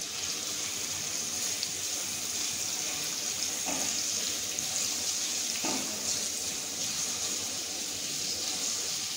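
Chopped onions, curry leaves and garlic sizzling steadily in hot oil in a steel kadai, stirred with a silicone spatula.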